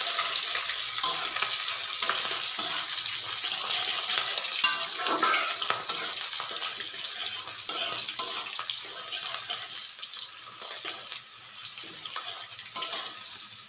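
Sliced onions and garlic sizzling in hot oil in an aluminium kadai, with a metal spatula stirring and now and then clicking against the pan. The sizzle gets somewhat quieter toward the end.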